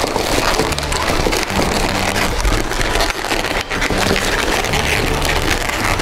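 Inflated 260 latex modelling balloons squeaking and rubbing together as they are twisted and wrapped into a balloon lobster's legs, a dense crackling rub, with background music's held low notes beneath.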